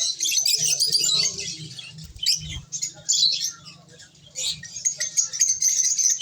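Lovebirds chirping and chattering in rapid high-pitched squeaks, thinning out briefly about four seconds in before picking up again.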